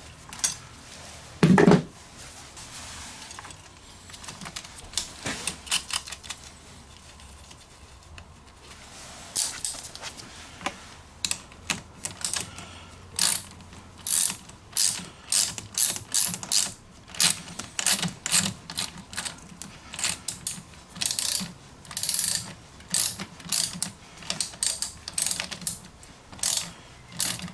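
Ratchet wrench clicking in short runs, about one to two a second, as the clamp nut on a car battery terminal is tightened, with a single knock near the start.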